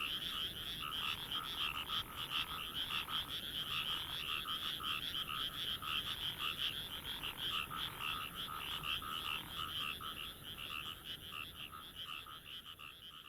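A chorus of frogs calling, with many rapid, trilling calls overlapping without a break and growing fainter near the end.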